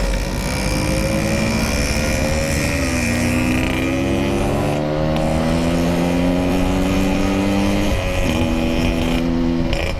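Yamaha RX-King 135cc two-stroke single running under way through its Packing Power exhaust. The pitch drops about three seconds in, climbs slowly, and steps again near eight seconds, as with gear changes.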